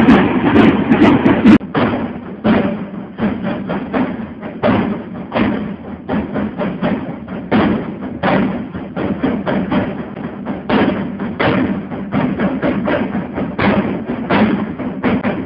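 Marching drum corps, many drummers beating side drums together in a fast, driving street rhythm of rapid strokes with regular louder accents.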